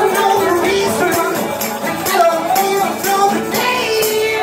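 Live acoustic music: a voice singing a melody over acoustic guitar, with a hand-held frame drum struck in rhythm.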